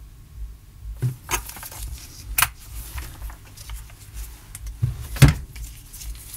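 A few sharp clicks and knocks of small objects handled on a workbench, the loudest about five seconds in, over a low steady hum.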